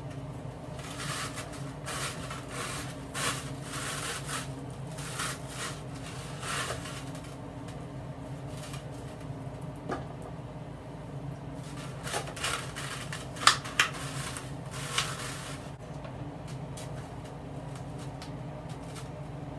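Hands handling and arranging a wig's hair on a mannequin head: brushing, rustling strokes in two spells, with a few sharp clicks in the second spell, over a steady low hum.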